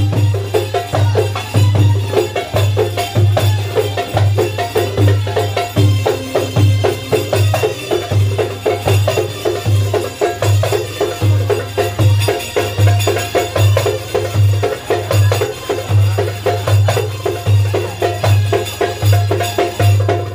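Loud belly-dance music with a heavy low drum beat repeating about every three-quarters of a second, quick percussion strokes and a melody over it, playing without a break.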